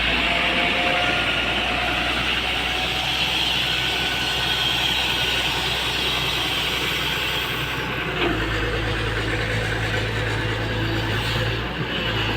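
Komatsu PC240 excavator's diesel engine running steadily, its note changing about eight seconds in.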